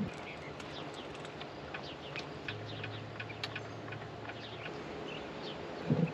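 Small birds chirping, many short calls scattered through a quiet outdoor background, with a brief louder low sound near the end.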